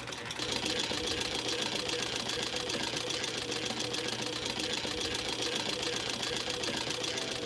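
Belt-driven sewing machine running at speed, a steady fast chattering rattle of stitching that starts just after the beginning.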